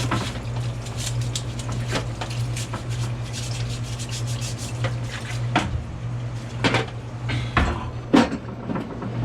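Metal parts and hand tools clinking and knocking irregularly while an air compressor is being taken apart, with a few louder knocks in the second half over a steady low hum.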